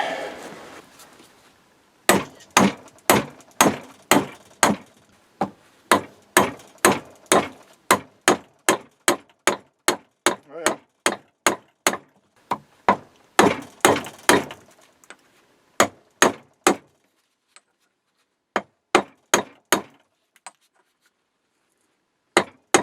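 Hammer blows on metal while driving the axle out of the workbench's wheel. They come in a steady run of sharp strikes about two to three a second for some thirteen seconds, then in short groups of a few blows with pauses between them.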